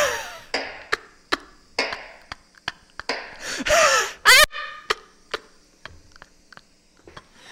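Metal meat tenderizer being banged on a kitchen tabletop: a run of sharp knocks a few tenths of a second apart, the loudest in the first two seconds and halfway through, getting sparser and fainter toward the end. A short high whining cry rises and falls about halfway through.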